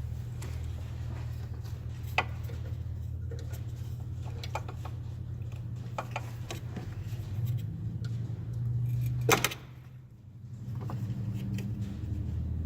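Small clicks and rattles of hands and tools working on car horn wiring, one sharp click louder than the rest about nine seconds in, over a steady low hum.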